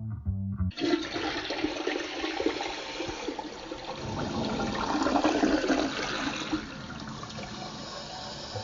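Guitar music cuts off abruptly, and a rushing noise like running water starts at once. It swells in the middle, then settles to a steadier hiss.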